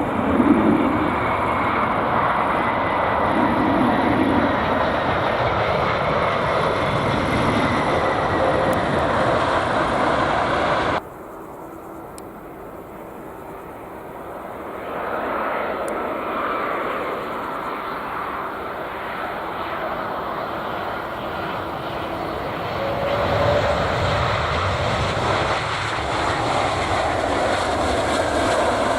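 Steady jet engine noise of a landing Airbus A380-800, with gusty wind on the microphone, cutting off abruptly about 11 seconds in. After a quieter stretch, the jet engines of an arriving Airbus A330-300 grow louder from about 15 seconds and carry on steadily.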